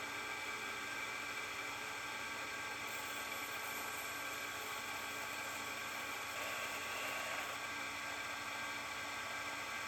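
Electric workshop machine running steadily with a high, even whir, swelling slightly about two-thirds of the way through.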